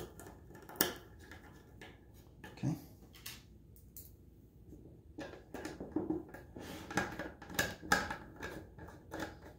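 Small screws being set and driven into an aluminium case cover with a small screwdriver: scattered light metallic clicks and scrapes, busier in the second half.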